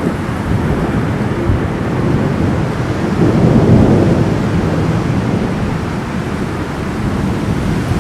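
Thunder rumbling over steady rain, swelling to its loudest about three to four seconds in.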